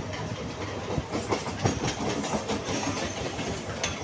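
Mumbai suburban electric local train running on the tracks: a steady rumble with the irregular clatter of steel wheels over rail joints, a few sharper knocks about a second in and near the end.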